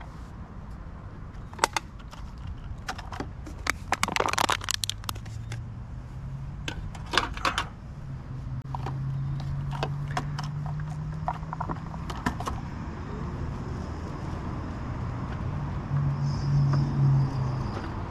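Bursts of light metallic clattering and jingling, with sharp clicks now and then. A steady low hum comes in about eight seconds in and swells near the end.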